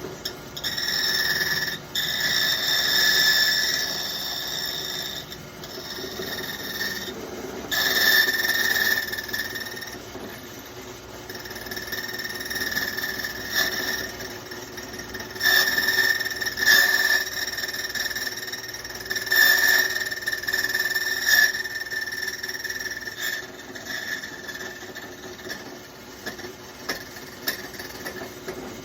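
Key duplicating machine's cutter wheel cutting the bitting into a Dodge transponder key blank, squealing in repeated bursts of a second or more as it bites the metal, over the steady hum of the machine's motor.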